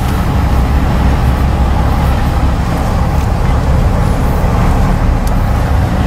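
Motor vehicle driving: steady engine and road noise that picks up in loudness at the start and then holds even.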